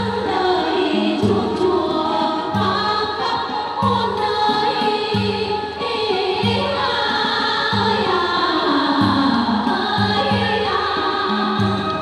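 Music with a group of voices singing over a steady low beat.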